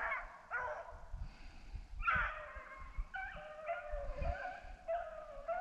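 A pack of rabbit hounds baying on a chase, several dogs' voices overlapping in drawn-out, wavering calls that thicken about two seconds in. This is the sound of hounds running a rabbit's scent.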